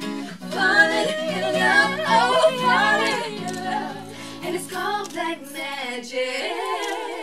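Several women singing together in harmony with heavy vibrato, over acoustic guitar chords. About six seconds in the guitar drops away, leaving a single held, wavering vocal note.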